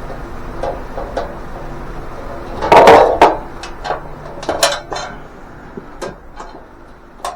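Sheet-steel panels of a welding cart clanking and rattling as they are handled and fitted together: a loud clatter of metal knocks about three seconds in, then a string of lighter clicks and taps.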